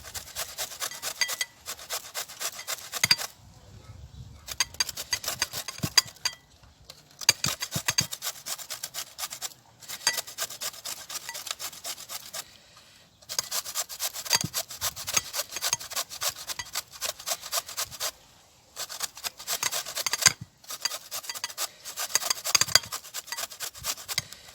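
Raw turnip being grated on a hand grater: quick repeated rasping strokes in runs, stopping briefly several times.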